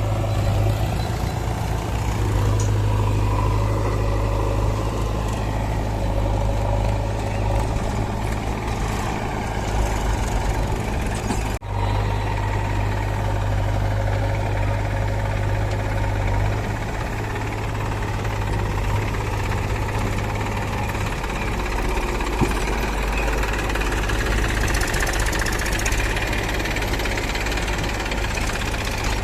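Diesel engine of a JCB 3DX backhoe loader running steadily with a strong low drone while it digs and loads mud. There is a split-second break in the sound a little over a third of the way in.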